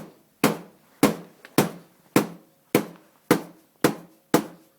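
Hammer blows at a steady pace of about two a second, eight strikes in all, each a sharp knock with a short ring, driving a bar-end insert into the end of a motorcycle handlebar.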